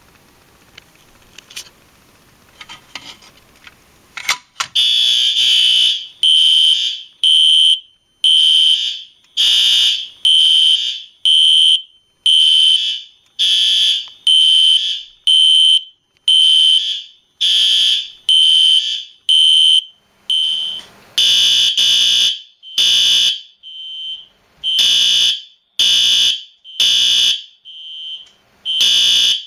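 Fire alarm horn/strobes (System Sensor SpectrAlert units and a Wheelock AS horn/strobe) are switched on after a few seconds of quiet and a click. They sound loud, high-pitched horn blasts in a steady pulse of about one a second during a system test. The blasts take on a fuller sound about two-thirds of the way in.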